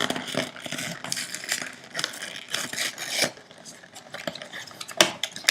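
Blind-box packaging being opened by hand: irregular crinkling and rustling with light clicks and knocks as the cardboard box and foil wrapping are handled.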